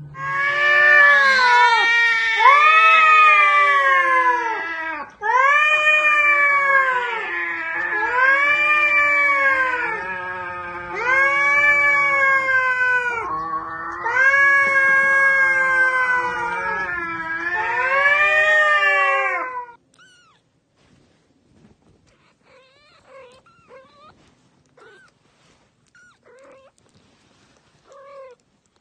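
Cat yowling, a string of long wails that rise and fall in pitch, one after another for about twenty seconds before stopping abruptly. After that come only faint, short high kitten mews.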